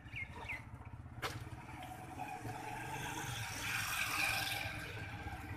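A motor vehicle passing close by: its noise swells to a peak about four seconds in over a steady low rumble. A single sharp knock about a second in.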